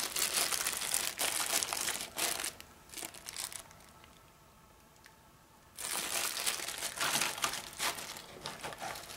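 Clear plastic zip-lock bags and packaging crinkling as they are handled, in two spells with a quiet pause of about two seconds in the middle.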